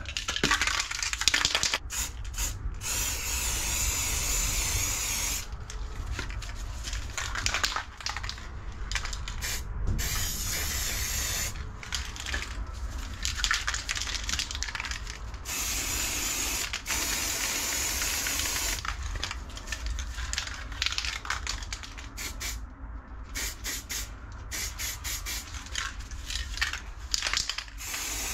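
Aerosol spray paint cans hissing in repeated bursts with short breaks between them.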